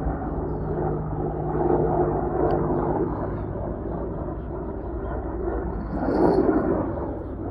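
Helicopters flying overhead: a steady low drone of rotors and engines that swells slightly as they pass.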